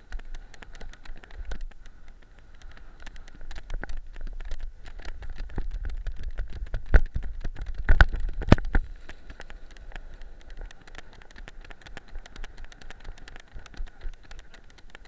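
Weimaraner running over a shingle beach, heard from a camera worn on the dog: pebbles crunching and clattering under its paws, with wind rumbling on the microphone. A few sharp knocks about seven to nine seconds in are the loudest sounds.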